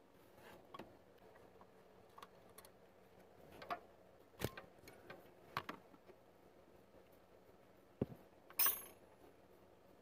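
Faint, scattered metallic clicks and knocks of hands and a wrench working the hydraulic line fitting on a clutch slave cylinder. There is a sharper knock about four seconds in and another about eight seconds in, and just after the second one a brief scraping rustle, the loudest sound.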